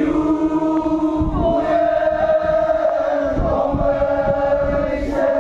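Konyak Naga men chanting together in a group, holding one long drawn-out note.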